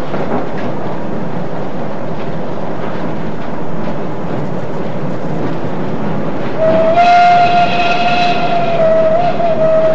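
Railway carriage running with a steady rumble and clatter. About seven seconds in, the train whistle sounds one long, steady note that is still going at the end.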